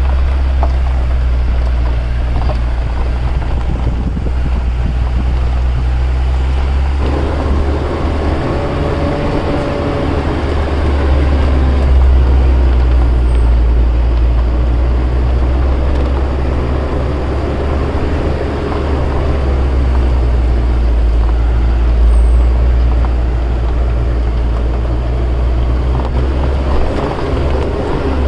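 Motorhome driving on a rough dirt track, heard from inside the cab: a loud, steady deep engine and road rumble. A higher, wavering engine note joins in about seven seconds in.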